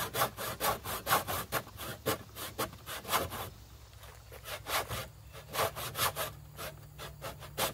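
Crosscut carcass saw (a backsaw) cutting across a thin wooden bridge plate in quick, even strokes, about four a second, with a brief pause about halfway through before the sawing resumes.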